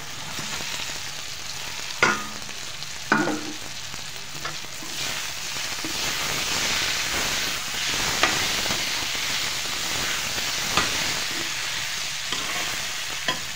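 Sliced onions and potatoes sizzling as they fry in oil in a kadhai, stirred with a metal slotted spoon that scrapes and knocks against the pan. Two sharp metal clanks about two and three seconds in are the loudest sounds; the sizzle grows louder through the middle as the potatoes go in and are stirred.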